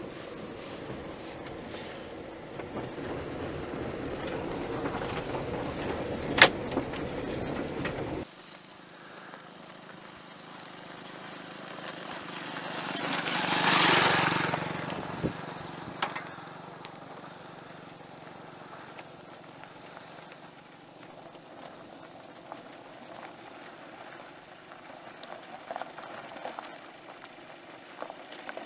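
Motor vehicle driving on a rough forest track. The sound drops abruptly about eight seconds in, and a broad rush of noise swells and fades about halfway through.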